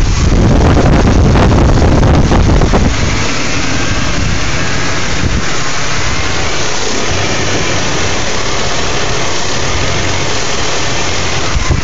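BMW E39 528i's straight-six engine idling roughly. It is louder and fuller for about the first three seconds, then drops to a quieter, steadier idle.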